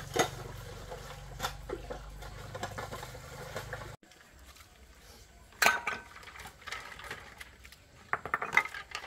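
Scattered clinks and knocks of dishes and utensils being handled, with a low steady hum that stops abruptly about four seconds in; the clinking grows busier near the end.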